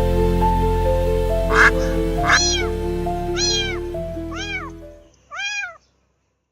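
Kitten mewing over soft background music: four high calls, each rising then falling in pitch, about a second apart. A short sharp knock comes just before the first mew, and the music fades out before the last one.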